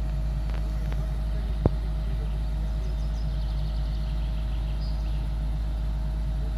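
Hyundai long-reach crawler excavator's diesel engine running steadily, with a single sharp click about a second and a half in.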